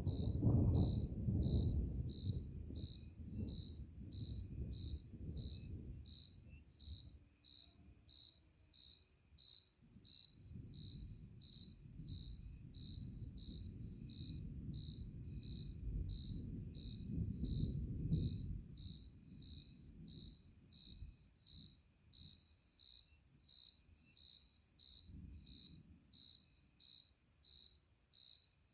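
A cricket chirping steadily, about one and a half chirps a second. Under it, long low rolls of distant thunder swell and fade in the first two thirds.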